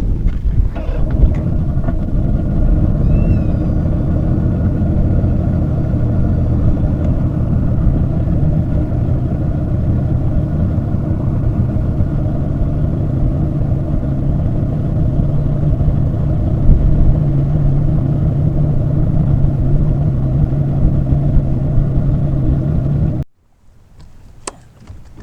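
A boat's outboard motor running steadily under way, a loud, even rumble. It ends abruptly near the end.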